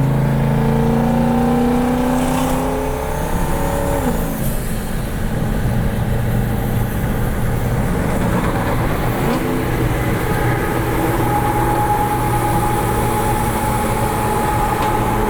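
Twin-turbocharged V8 of a Jeep Grand Cherokee SRT pulling with slowly rising pitch, then dropping back about four seconds in and running on at a steady cruise.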